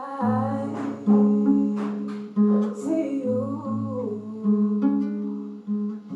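Acoustic guitar being plucked, with a voice singing a melody over the low notes.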